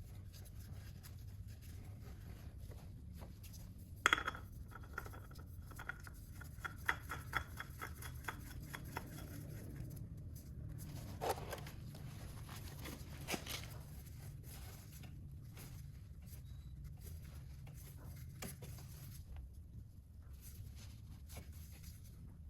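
Hand tools and parts being handled in motorcycle oil-change work: a sharp metallic click, then a run of quick, evenly spaced ringing clicks lasting several seconds, and a couple of single knocks, over a steady low hum.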